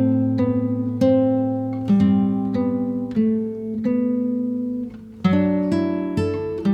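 Background music: plucked acoustic guitar chords, struck about once a second and left to ring out, with a short quieter gap near the end.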